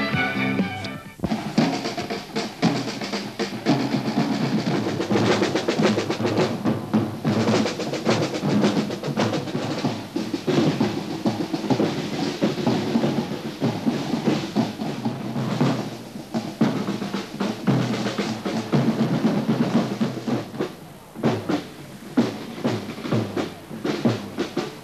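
Parade snare and bass drums playing rolls and marching beats for a costumed procession, following a strain of title music that stops about a second in. The drumming drops away briefly near the end, then picks up again.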